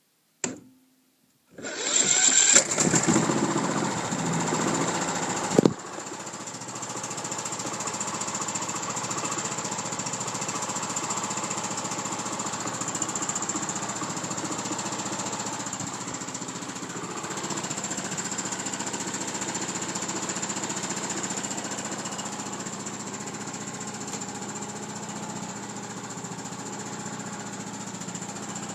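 Craftsman riding mower's 18 horsepower Kohler Pro engine cold-started: a click, then the starter cranks and the engine catches about a second and a half in and runs loud for a few seconds. About six seconds in it drops suddenly to a steady, quieter run.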